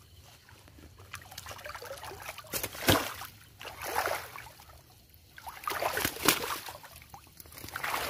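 River water sloshing and splashing around a man wading toward the bank, in uneven surges, with two sharp splashes or knocks about three and six seconds in.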